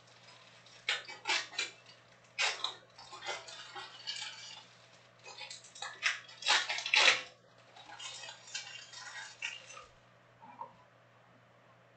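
Panini Prizm soccer trading cards being handled and flipped through by hand: irregular rustles, slides and light clicks of card stock that stop about ten seconds in, over a steady low hum.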